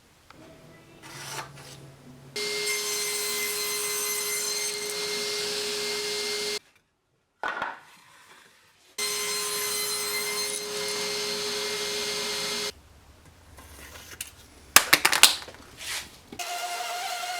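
A power saw running steadily as it cuts wood, in two stretches of about four seconds, each cut off suddenly. A few sharp knocks come near the end.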